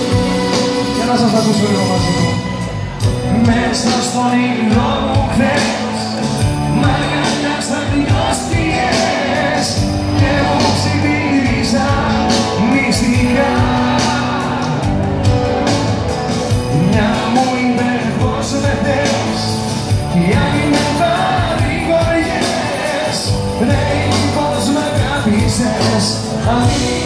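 Live Greek pop band playing loud, amplified music with a male singer singing over it.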